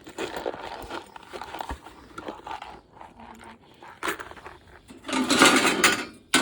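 Paper and parts from a dismantled flat-screen TV being handled: rustling with light knocks and clicks, a louder rustle about five seconds in, then a sharp click.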